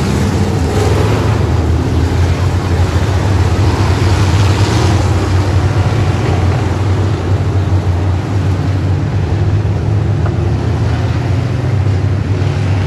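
A pack of oval-track race cars running at speed: a loud, steady drone of many engines, swelling about four to five seconds in as the field passes.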